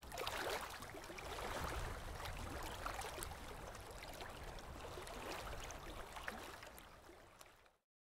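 Running, splashing water: a steady hiss full of small irregular crackles that fades out near the end.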